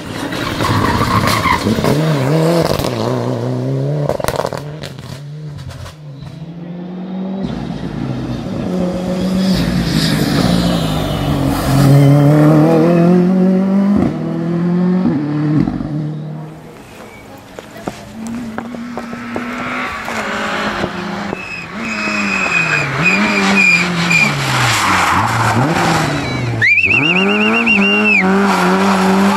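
Rally car engines revving hard through tight asphalt bends, one car after another: revs rise, drop on braking and gear changes, then climb again out of the corner. Near the end a tyre squeals twice, a high steady screech.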